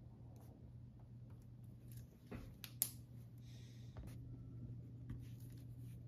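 Pen writing on a sheet of paper on a desk: faint scratchy strokes and small ticks, with one sharp tick about three seconds in. A low steady hum underneath.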